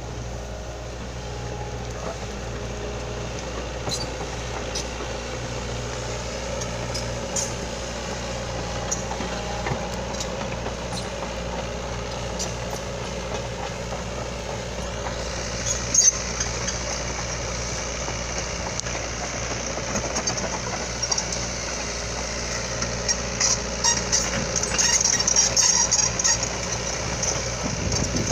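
Heavy diesel engine of a truck or excavator running steadily with a low hum. A high hiss comes in about halfway and turns choppy near the end, with scattered clicks throughout.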